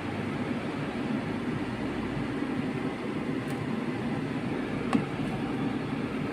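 Steady low rumbling background noise, with one short knock about five seconds in.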